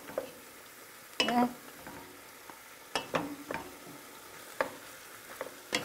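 Wooden spoon stirring and scraping fried potato cubes and mushrooms in a stainless-steel pan, with a few sharp knocks of the spoon against the pan, over a faint sizzle of frying.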